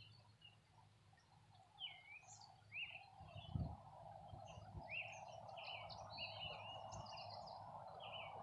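Small birds chirping and calling in many short notes and quick glides. A low thump comes about three and a half seconds in, and a faint steady rushing sound builds from then on.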